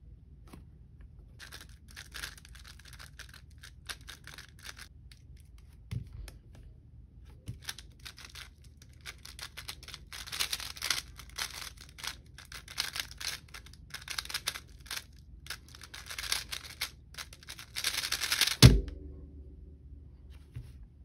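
X-Man Tornado V3 M Pioneer magnetic 3x3 speedcube turned fast through a solve: a dense run of rapid plastic clicks and clacks from its turning layers, busiest in the second half. Near the end comes one loud knock as the cube is put down and the timer is slapped to stop it.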